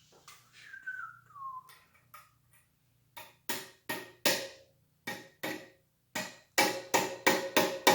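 Repeated hammer blows on metal, about a dozen sharp ringing strikes that come faster and louder toward the end, driving a triple-tree fork part into the bicycle frame. They are preceded by a short whistle that falls in pitch.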